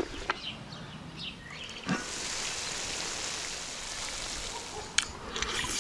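A wooden spoon knocks against a wide metal pan of frying lamb and potatoes as it is stirred. From about two seconds in comes a steady sizzle, with a sharp click near the end.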